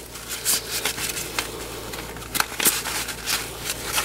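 Fabric rustling, scuffs and small clicks as a plastic Thermacell repeller is pushed and worked into its nylon holster.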